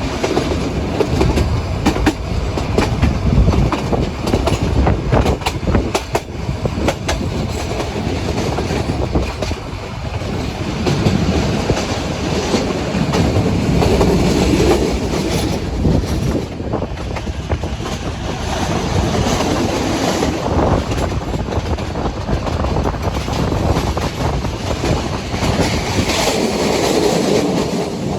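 Nilgiri Mountain Railway toy train running along the track, its wheels clattering steadily, with a run of sharp clicks over the first few seconds.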